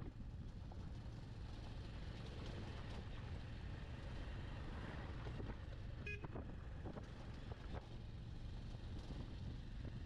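Wind rushing over the microphone and the low drone of a Bajaj Avenger 160 Street motorcycle on the move, with a short horn toot about six seconds in.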